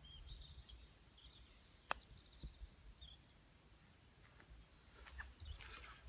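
A single crisp click of a 9 iron striking a golf ball on a chip shot, about two seconds in, with faint bird chirps around it.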